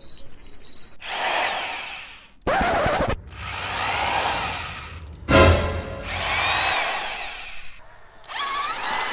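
Electric power drill running in several separate bursts, drilling a hole, its whine rising and falling within each burst.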